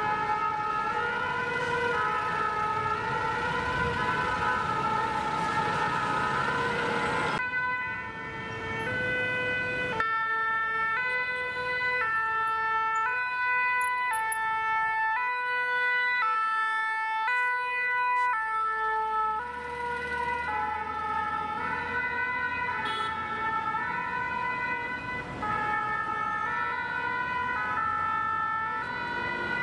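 Paris fire brigade two-tone siren, the 'pin-pon' switching steadily back and forth between two notes, over the hum of city traffic. The background changes abruptly a few times where shots are cut together.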